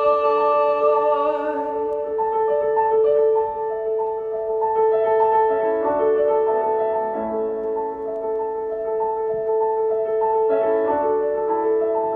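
Solo grand piano playing a quiet interlude of changing chords over a steady repeated middle note, bridging into the next song. A man's held sung note fades out about a second and a half in.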